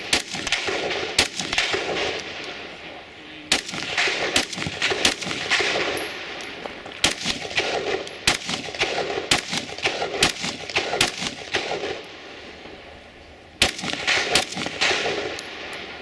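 Scoped semi-automatic bullpup rifle firing a string of single shots at a quick, uneven pace, about one a second or faster, each crack followed by a short echo. The firing pauses briefly about three seconds in and again near twelve seconds before a last burst of shots.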